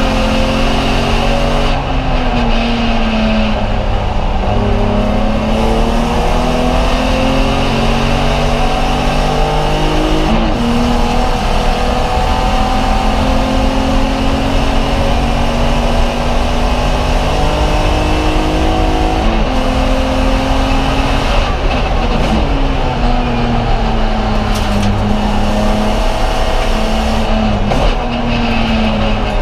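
BMW E46 330 race car's 3.0-litre inline-six under hard racing load, heard from inside the stripped cabin. The revs climb steadily and fall sharply several times as the driver shifts and brakes for corners.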